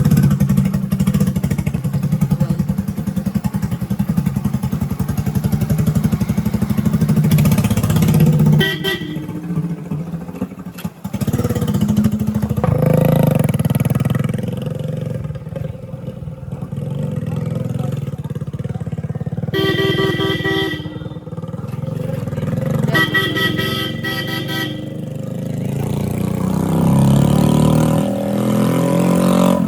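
Motorcycle engine running on the road, loudest for the first eight seconds, with a vehicle horn honking twice in the second half and the engine note rising and falling near the end.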